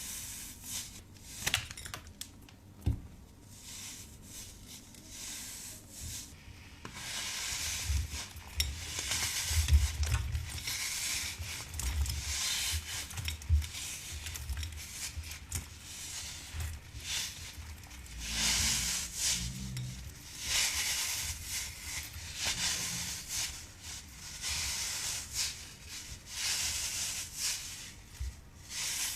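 Slime being handled and stirred: an irregular crackly, hissing noise that swells and fades in stretches, with a few soft low thumps.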